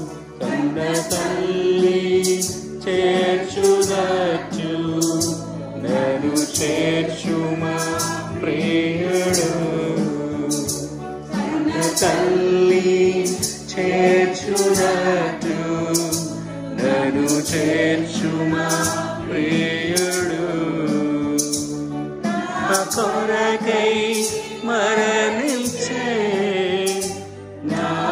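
A group of voices singing a Telugu Christian worship song in unison over electronic keyboard accompaniment, with a regular ticking beat.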